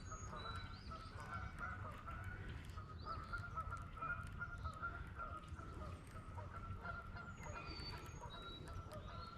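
A distant flock of birds calling without a break, faint, with a few brief higher chirps over it.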